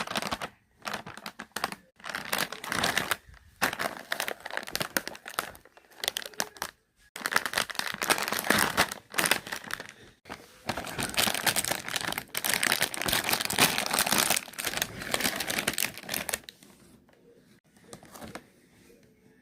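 Crax Rings chips packet crinkling loudly as it is handled and opened, in irregular stretches of crackle with short pauses, dying down a few seconds before the end.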